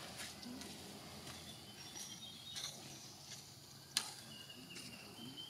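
Faint outdoor background with scattered small clicks, one sharper click about four seconds in, and a few faint, thin high chirps.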